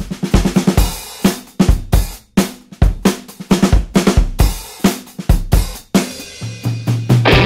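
Background music: a rock drum-kit beat of bass drum, snare and cymbals, with a low bass note coming in near the end.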